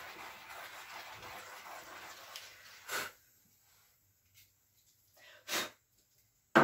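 Steady rubbing as a small hand tool is worked over the wet white base paint on a wooden cradled round, stopping about two and a half seconds in. Two short sniffs follow, then a sudden sharp knock at the very end.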